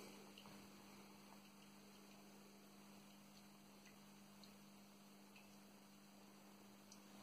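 Mini Gaggia espresso machine humming faintly and steadily, with a few soft, irregular ticks of coffee dripping into the cup at the end of the shot.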